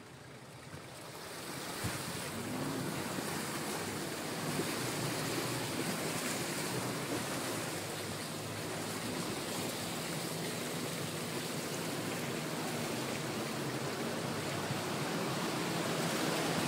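Muddy water rushing and splashing along the side of an off-road vehicle as it wades through a flooded channel, with the engine running faintly underneath. The rushing builds about a second in and grows louder near the end.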